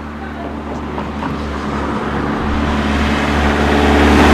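A motor vehicle approaching along the street, its engine hum and tyre noise growing steadily louder as it nears.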